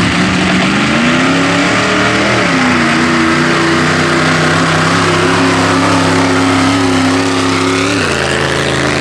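Engine of a lifted Ford Ranger mud truck on tractor tires, revving hard under load while dragging a stack of tires. Its pitch climbs for about two seconds, drops sharply, holds high and steady, then drops again near the end.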